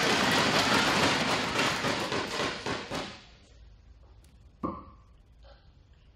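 Audience applauding, dying away about three seconds in. Then a single steel-tip dart strikes the bristle dartboard with one sharp thud.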